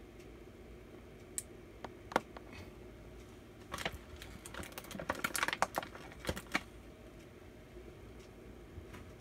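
Small hard plastic toy figures clicking and tapping against a hard tabletop as they are handled. A few single clicks come first, then a quick run of clicks over about three seconds in the middle.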